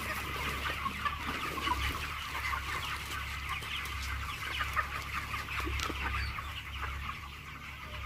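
A large flock of 27-day-old broiler chickens calling all at once, a dense, steady chatter of many overlapping short calls.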